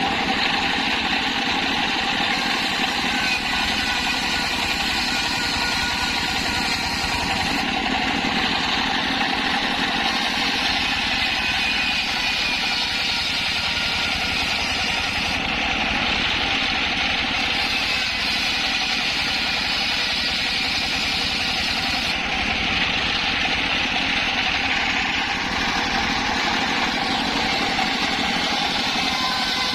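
Engine-driven circular sawmill running steadily while sawing waru (sea hibiscus) timber: a continuous engine note under the whine of the blade, with small shifts in tone every seven or eight seconds.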